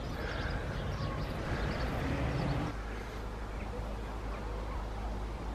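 Outdoor background noise: a steady low rumble, a little louder for the first few seconds, with a few faint short chirps.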